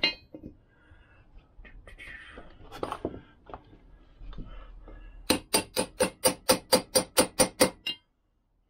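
Light hammer blows on a steel bearing drift, driving a part into the bore of a warmed aluminium Lambretta mag flange: after a few seconds of handling clinks, a fast run of about a dozen taps, roughly five a second, each with a short metallic ring.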